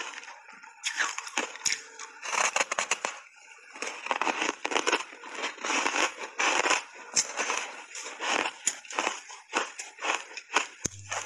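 A big mouthful of frozen block ice coated in matcha tea powder being bitten and chewed, the ice cracking between the teeth in dense, irregular crunches, heard close up through a clip-on microphone.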